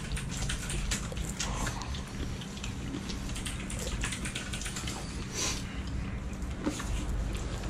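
People eating jajangmyeon: noodles slurped and chewed, with small scattered clicks of chopsticks against bowls.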